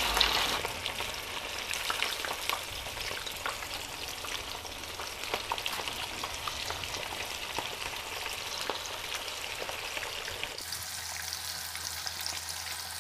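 Pork-coated bread slices deep-frying in hot oil in a pan: a steady sizzle with many small crackles and pops, a little louder in the first second as another slice goes into the oil.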